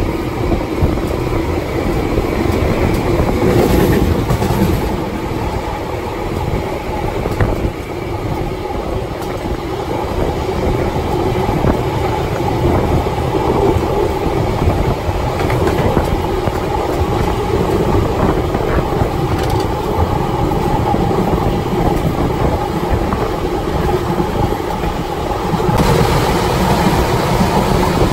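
A hundred-year-old railway carriage running along the line, heard from its open end platform: a steady rumble of wheels on the rails, a little louder near the end.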